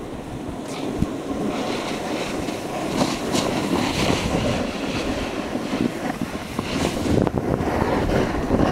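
Wind rumbling on the microphone of a camera moving downhill, over the steady scraping hiss of riding on packed snow, with a few sharper edge scrapes.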